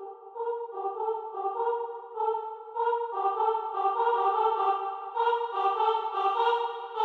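Instrumental music: a melody of held, pitched notes changing roughly twice a second, growing louder from about three seconds in.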